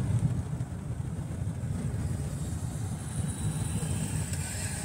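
A car driving, with wind and road noise heard from inside the cabin: an uneven low rumble of wind buffeting the microphone, joined by a higher hiss after about three seconds.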